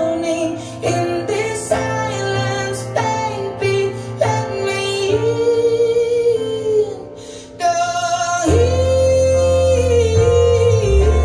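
A female vocal with plucked guitar accompaniment, played back through a pair of floorstanding hi-fi loudspeakers in a room, with long held sung notes. A deep bass line comes in about eight and a half seconds in.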